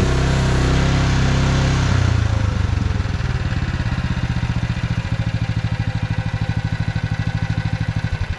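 Small gas engine of a mini excavator running hard under hydraulic load, then dropping back about two seconds in to a lower, evenly pulsing idle.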